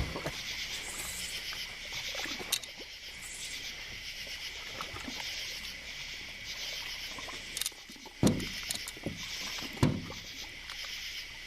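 Steady high-pitched chorus of night insects, with a couple of dull knocks about two-thirds of the way through.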